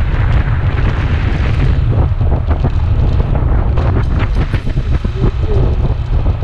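Wind buffeting the microphone of a moving Kawasaki Ninja 250 at road speed: a loud, steady low rumble with a rushing hiss over it, mixed with the motorcycle's running noise.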